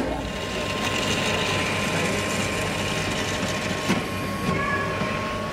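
Franke automatic coffee machine running as it dispenses a hot drink into a mug: a steady mechanical hum with a thin, high, steady tone over it.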